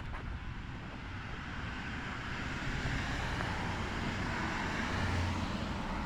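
A passing motor vehicle: its noise swells over several seconds and eases off near the end.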